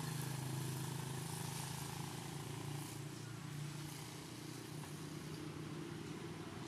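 A motor engine running steadily, a continuous even hum that eases off slightly about three seconds in.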